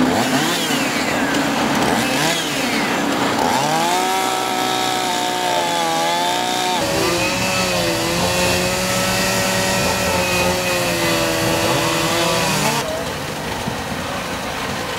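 Two-stroke chainsaw running at high revs, its pitch sagging and recovering as it cuts under load, then cutting off abruptly near the end.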